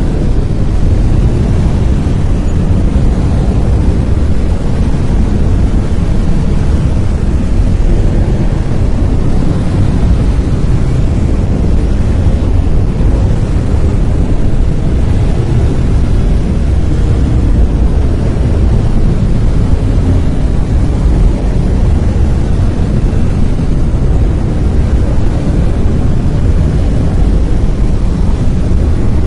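Brown noise: a steady, loud, deep rushing hiss, strongest in the low end and thinning toward the highs, with no change or pattern.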